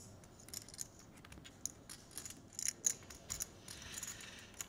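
Clay poker chips clicking together as a player handles a stack at the table, a quiet run of sharp, irregular clicks.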